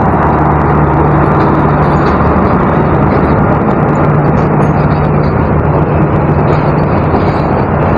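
Passenger train coaches rolling past and away along the track: a steady rumble of wheels on rail with a low, steady hum under it.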